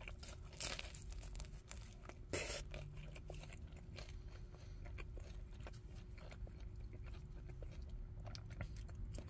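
Faint close-up chewing of a pepperoni-filled bread puff, with small crunches and two louder mouth noises at about half a second and about two and a half seconds in.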